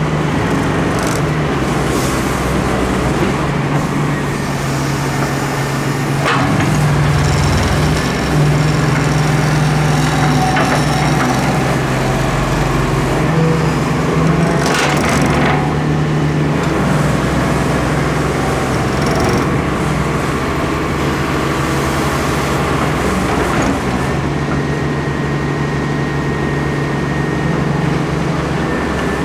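Diesel engine of a Doosan Solar 130W-V wheeled excavator running steadily as it works its hydraulics loading sand. There are sharp knocks about 6 and 15 seconds in.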